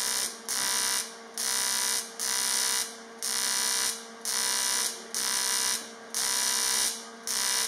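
AC TIG welding arc buzzing on the cast aluminium motorcycle frame, struck and broken about nine times in short spells of roughly half a second each, about one a second, as the welder dabs the weld along. A steady hum from the welding set runs underneath.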